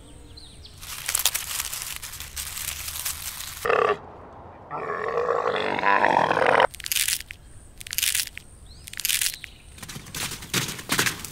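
An animal's harsh, grunting calls: a long rough call, a second long call a little over a second later, then a run of short grunts.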